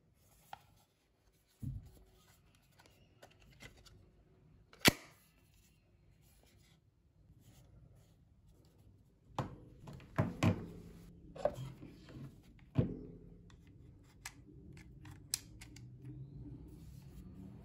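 Handling noise of small hard objects: scattered clicks and knocks, one sharp click about five seconds in and a run of knocks between about nine and thirteen seconds. A faint high tone comes in near the end.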